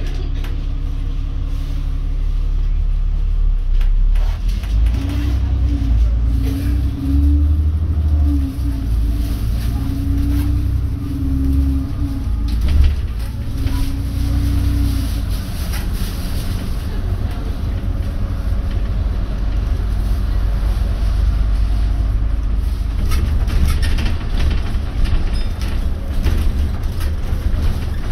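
A London bus's engine and road noise heard from inside the bus while it drives: a continuous low rumble and engine hum, with a higher steady whine joining from about five seconds in and fading out around fifteen seconds.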